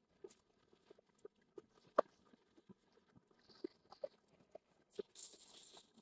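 Shallow river water gurgling and lapping close to the microphone: scattered small irregular plops and clicks, with a brief splashing hiss near the end.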